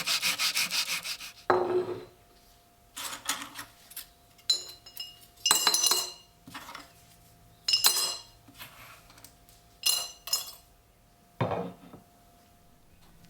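Rhythmic hand rubbing or sanding strokes, about five a second, stop about a second in. Then come a series of separate short clatters and clinks of small metal parts being handled and set down, some ringing briefly.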